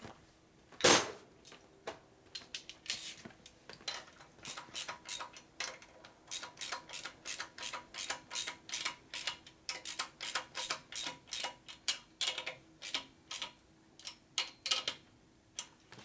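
Hand ratchet wrench clicking in short, even strokes, about two or three clicks a second, as the axle-cap nuts on the front fork legs are run down. A single louder clank about a second in.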